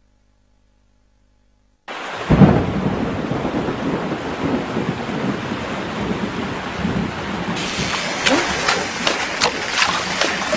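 Near silence, then about two seconds in a sudden thunderclap and steady heavy rain; from about seven and a half seconds in, sharp, quick drips and splashes are added to the downpour.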